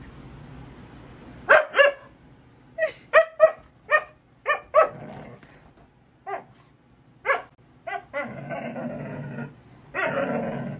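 Husky barking in short, sharp barks, about a dozen spaced irregularly, followed by two longer, rougher vocalizations of about a second each near the end.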